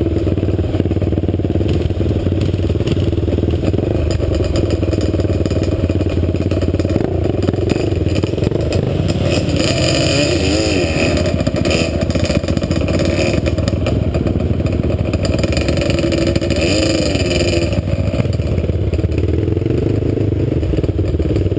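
Sport quad (ATV) engine running under riding load, its pitch wavering up and down with the throttle, with some clatter.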